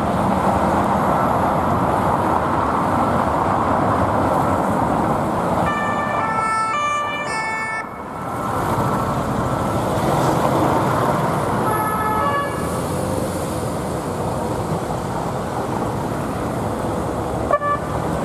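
Steady city traffic and passing vehicle engines, broken by a short burst of a police two-tone siren alternating between two pitches about six seconds in and a briefer burst around twelve seconds. A sharp click comes near the end.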